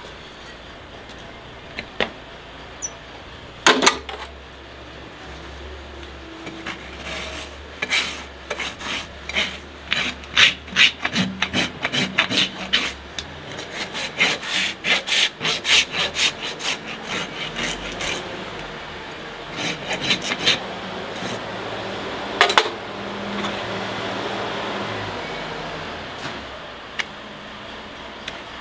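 Farrier's steel hoof rasp filing a horse's hoof, a run of rasping strokes about two a second through the middle, with a few more strokes and single scrapes before and after.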